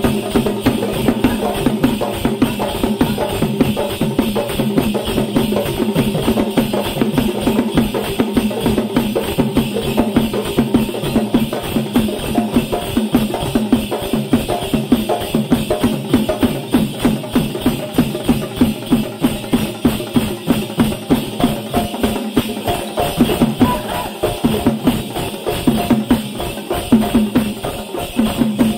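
Several large rope-laced barrel drums beaten with sticks in a fast, steady beat. Over the drums comes the jingling of heavy salangai ankle bells on the stamping dancers' legs, as in a kambathu (salangai) village dance.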